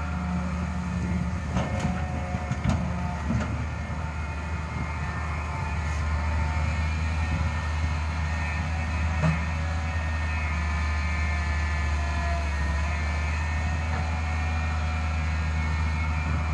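Diesel engine of a Daewoo 130W-V wheeled excavator running steadily under load, with a higher whine over its low drone. A few sharp knocks come about two to three seconds in, and another near the middle.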